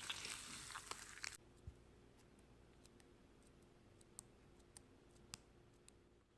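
Slime being squished, with soft crackly sounds for the first second or so, then near silence broken by faint scattered clicks and pops.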